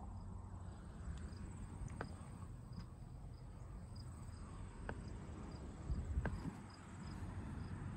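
Cricket chirping steadily, about two short chirps a second. There are a few faint clicks and some low handling rumble about six seconds in.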